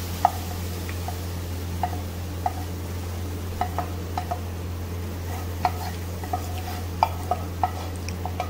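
Spatula scraping and tapping against a nonstick frying pan as a thick mango mixture is scraped out: about a dozen short, irregular clicks and scrapes over a steady low hum.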